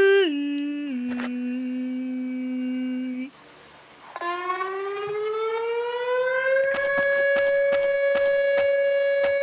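Whelen WPS 2905 electronic outdoor warning siren. A tone drops down in pitch in steps, holds for about three seconds and cuts off. After a brief pause the alert tone starts, rising in pitch for about two and a half seconds and then holding steady.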